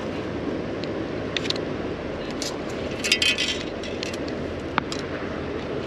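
Steady rush of river water, with a few scattered light clicks and a brief metallic rattle about three seconds in.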